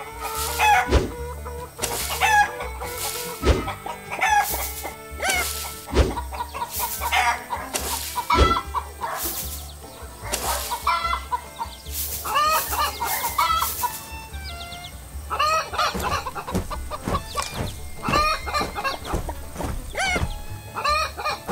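Hens clucking in short repeated calls, thickest in the second half, over background music with a regular beat.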